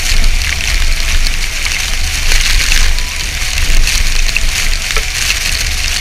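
Waterfall close up: loud, steady rushing and splashing of falling water and spray, with a deep rumble underneath.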